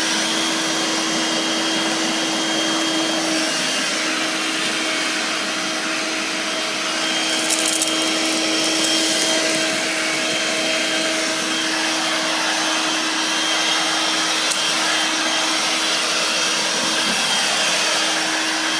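Dirt Devil corded bagless stick vacuum running steadily on carpet, its motor holding a constant hum over the rush of air. A few brief clicks come about seven to nine seconds in.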